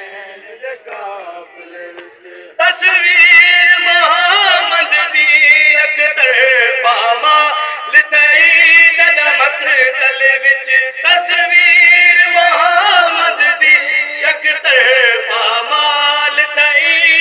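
Group of men singing a noha, a Shia mourning lament for Muharram, unaccompanied. The singing is soft at first, then rises sharply in loudness about two and a half seconds in, as several voices sing together.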